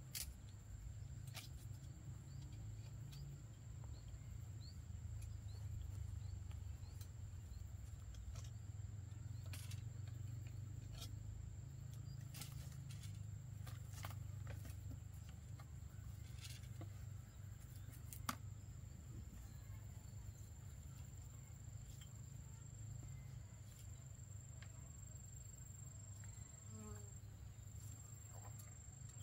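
Faint, steady, high-pitched insect drone over a low rumble, with scattered sharp clicks and knocks from bamboo poles and tools being handled.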